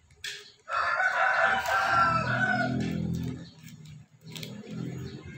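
A rooster crowing once: a loud, drawn-out pitched call lasting about two and a half seconds, starting just under a second in. Faint clicks and rustling come from plastic toy bricks being handled.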